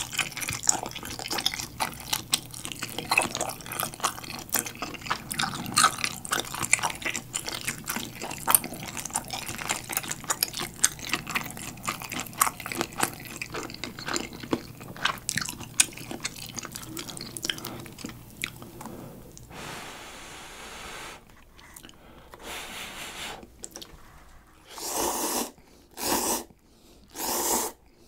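Close-miked chewing of soft steamed dumplings, a dense run of small mouth clicks and smacks. Near the end come three loud slurps, each under a second, as instant cup noodles are sucked up.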